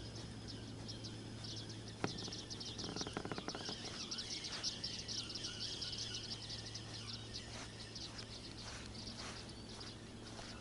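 Rapid high-pitched chirping of outdoor wildlife, densest from about one to seven seconds in, over a steady low hum. A single click about two seconds in and a short rattle about a second later cut through it.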